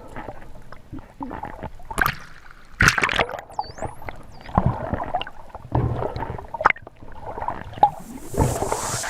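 Wild dolphins vocalising underwater: irregular clicks and fast buzzing click trains, with one whistle that dips and then rises, about three and a half seconds in, heard through a GoPro housing along with water noise.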